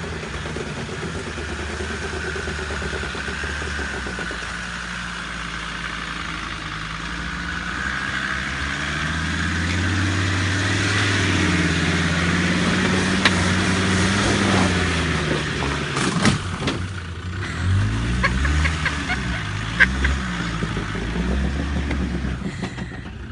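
Land Rover Discovery engine working under load as the 4x4 climbs a steep muddy bank: the note rises through the middle, then revs up and down several times near the end. A few sharp knocks come through about two-thirds of the way in.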